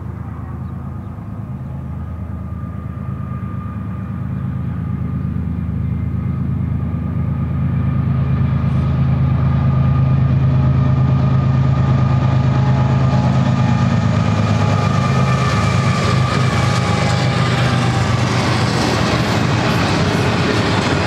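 GE ES44C4 diesel locomotives approaching with a steady low engine drone that grows louder toward the middle. The double-stack container cars then roll past with rising wheel and rail clatter from about two-thirds in.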